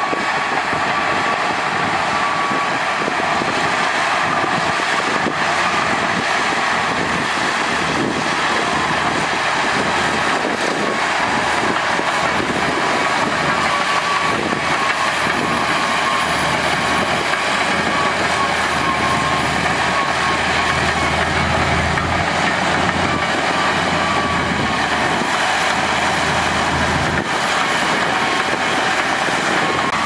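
Liugong B160C crawler bulldozer's diesel engine running steadily under load as its blade pushes soil, with a steady high whine over the engine noise and the low rumble swelling in the second half.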